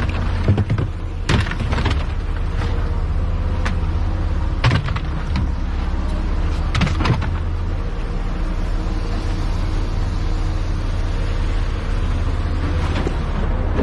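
Earth-moving machine's engine running steadily, with a few sharp metallic knocks.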